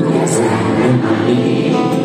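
A live pop band playing with a singer, heard from among the concert audience: continuous, steady music with sung melody lines over the instruments.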